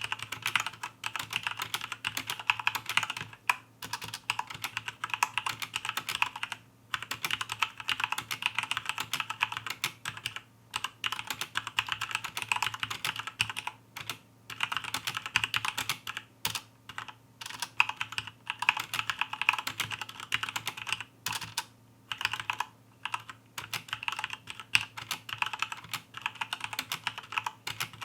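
Fast typing on a mechanical keyboard with linear red switches: a rapid, dense clatter of key presses in runs, with several brief pauses.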